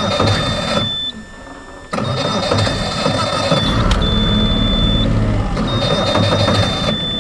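Boat motor running with a steady high whine, cutting out for about a second near the start and then starting again.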